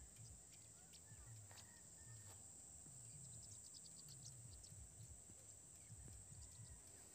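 Near silence: faint outdoor background noise with a steady, faint high-pitched hiss.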